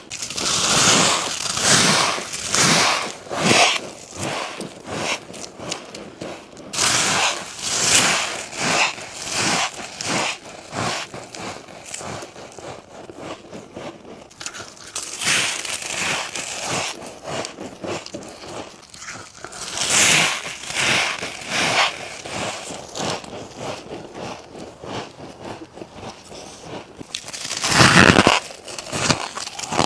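Close-up biting and chewing of humidifier-grown freezer frost: repeated groups of crisp, crackly crunches, with a loud bite near the end.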